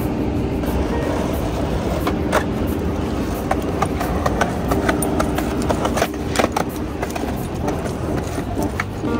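Skateboard wheels rolling over pavement in a steady rumble, with several sharp clacks from the board scattered through.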